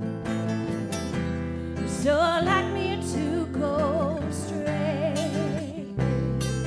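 Live worship band music: strummed acoustic guitar and electric bass, with a woman singing long held notes with vibrato from about two seconds in.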